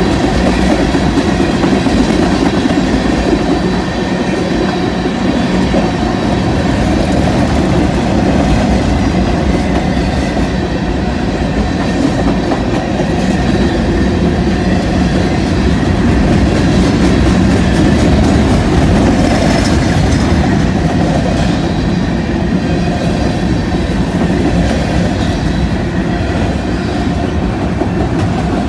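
Cars of a long mixed freight train rolling steadily past close by, steel wheels rumbling on the rails.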